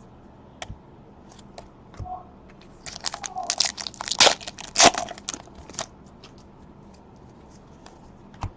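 Trading card pack wrapper crinkling and tearing as a pack is handled and opened, with a few light clicks before it. The crackling comes in a dense patch in the middle, loudest for a second or two, then stops.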